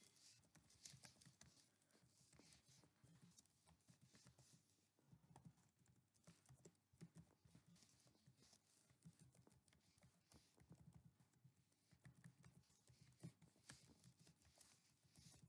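Faint computer keyboard typing: quick, irregular key clicks.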